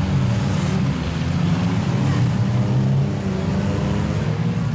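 Engines of several demolition derby cars running loudly at once, their overlapping notes making a dense, steady drone.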